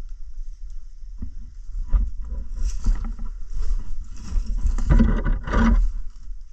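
Footsteps crunching through dry brush and twigs, with branches rustling and scraping close to a helmet-mounted microphone. The crackling grows and is loudest about five seconds in.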